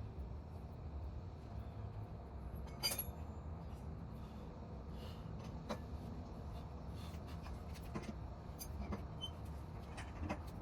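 A few short, light clinks and knocks, the sharpest about three seconds in with a brief ring, over a steady low rumble.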